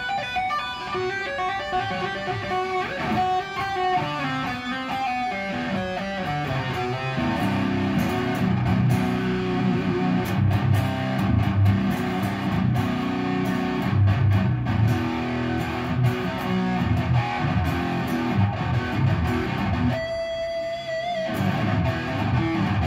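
A cheap Ibanez electric guitar, rewired and set up again, played to show off its tone. It opens with quick single notes in the upper register, then from about seven seconds in moves to a low riff, with one held note with vibrato near the end.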